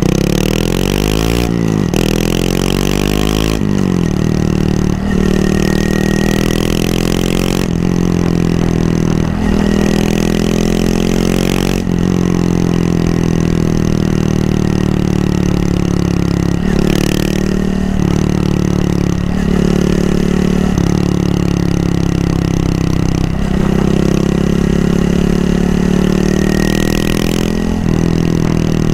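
Honda Monkey 125's single-cylinder four-stroke engine under way. The pitch climbs and then drops back again and again as the rider changes gear and eases on and off the throttle.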